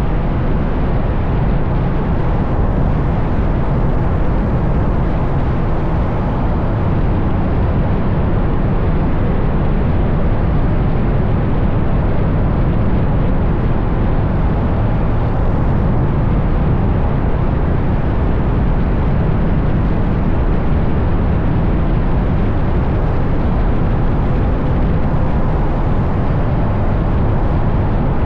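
Wind rushing over the microphone of a camera mounted on the outside of a moving car, mixed with tyre and road noise: a steady, deep rumble with no clear engine note standing out.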